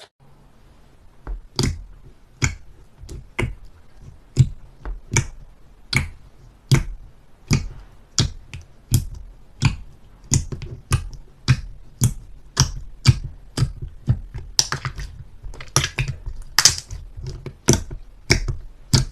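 Slime being pressed and squeezed by hand, giving sharp sticky clicks and pops about once a second, coming faster and in clusters toward the end.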